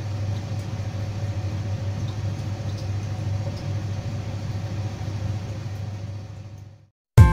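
A steady low hum of background noise that fades out just before seven seconds in. Plucked guitar music starts at the very end.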